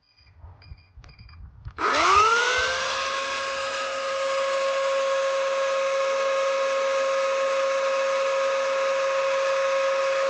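Greenworks 80V 18-inch brushless cordless chainsaw: a few short beeps as it is switched on, then its electric motor spins up with a rising whine about two seconds in and runs at steady full speed, a loud even whine with no cutting.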